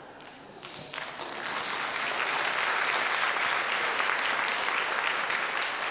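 Audience applauding in a concert hall, swelling about a second in and then holding steady.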